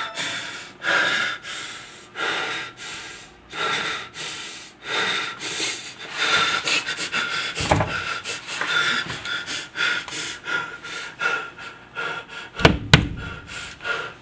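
A man panting, fast heavy breaths in and out. There is a dull thump about halfway, and two sharp knocks close together near the end.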